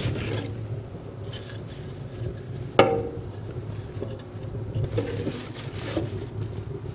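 Scraps of OSB board being shoved into a burning wood stove's metal firebox, knocking and scraping against the stove and each other, with one sharp clunk about three seconds in.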